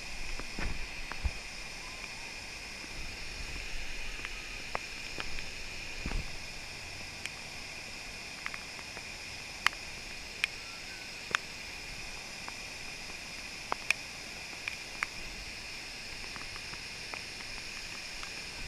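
Steady rushing hiss of river water pouring over a low-head dam, with scattered sharp clicks.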